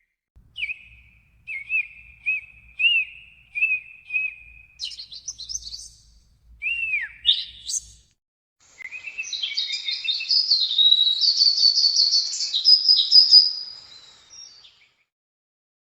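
Songbird calls: a run of about six short, clear whistled chirps, then higher quick chirps and rising notes, and about nine seconds in a longer, fast warbling song that stops around fourteen seconds in.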